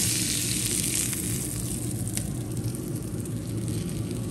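Hot fat sizzling in a perforated stainless frying pan just emptied of fried meat patties, fading over the first couple of seconds, with a couple of light clicks and a steady low hum underneath.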